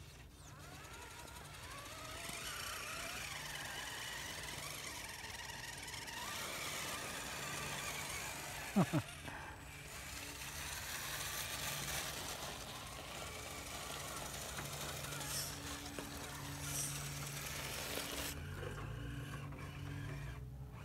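Electric motors and geartrains of scale RC rock crawlers whining as they crawl up a gravelly slope, the pitch rising and falling with the throttle. Two quick sharp sounds about nine seconds in stand out as the loudest.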